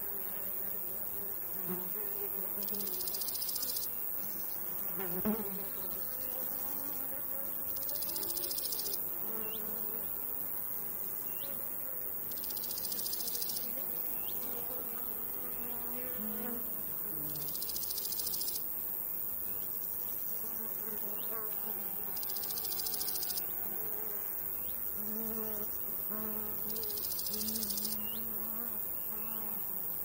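Summer meadow insects: a steady, high chirring of crickets that swells into a louder burst about every four to five seconds, over the low, wavering buzz of flies and bees. One brief louder sound comes about five seconds in.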